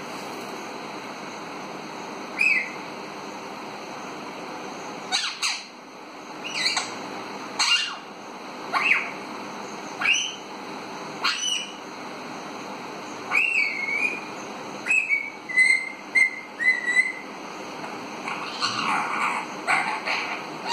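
Young Alexandrine parakeet whistling: short whistled calls every second or so, many bending up then down in pitch, with a quick run of short repeated notes past the middle and a rougher call near the end.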